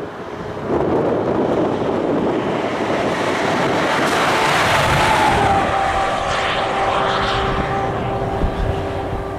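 A vehicle passing with a steady rushing engine noise. Its humming tone drops slightly in pitch around the middle.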